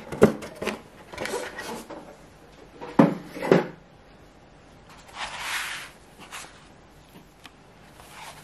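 Small gel polish bottles handled and knocked against each other and set down, a few sharp knocks in the first half, then a short scraping rustle about five seconds in and a few light clicks.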